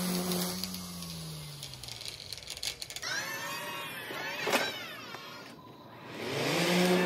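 Electric string trimmer motor winding down, its hum dropping in pitch and fading. Then the high whine of an electric zero-turn mower driving past, bending in pitch about halfway through, and a steady motor hum starting up again near the end.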